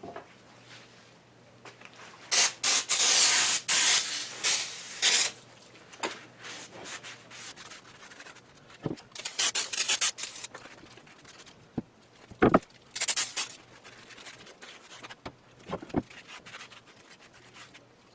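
Aerosol brake cleaner sprayed onto metal brackets in three hissing bursts, a long one early and two shorter ones later, for a final degreasing before primer. Between the bursts there are wiping sounds and a few sharp knocks.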